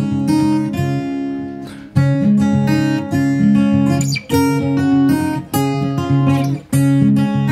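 Background music: acoustic guitar strumming and plucking chords in a steady rhythm.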